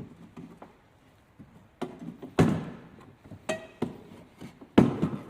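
A handful of separate knocks and clunks as the electric motor and its belt are fitted onto the homemade lathe's frame, the loudest about halfway through and near the end. The motor is not running.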